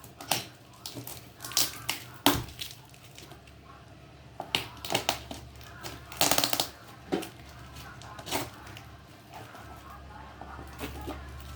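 Packaging being handled and torn open during unboxing: a run of irregular crackles and snaps, with a longer tearing or crumpling rush about six seconds in.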